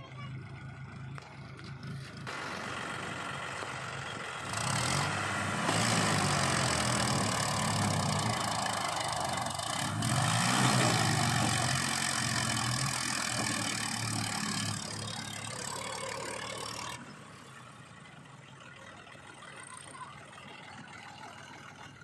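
Sonalika DI 35 RX tractor's diesel engine working hard, pulling a trailer heaped with earth through soft ground as its rear tyres churn up dirt. The engine note rises and falls, loudest through the middle, and drops away sharply about five seconds before the end.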